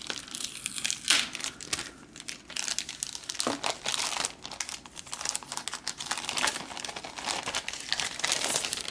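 Clear plastic bag crinkling and crackling as hands open it and slide a tablet out, the sharpest crackle about a second in.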